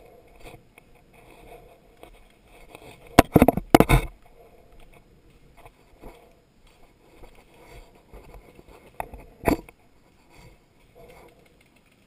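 Footsteps and weed stems rustling as a player pushes along a path through tall goldenrod, broken by a quick cluster of loud sharp knocks about three seconds in and two more sharp knocks near nine seconds.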